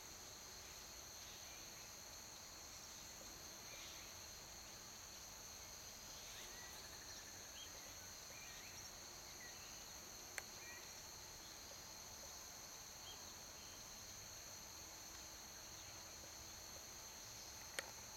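Faint, steady chorus of insects sounding at several constant high pitches, with a few faint bird chirps. Two sharp clicks, one about ten seconds in and one near the end.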